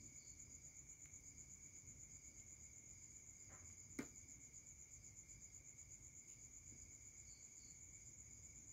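Faint, steady high-pitched trilling of crickets, with one sharp click about four seconds in.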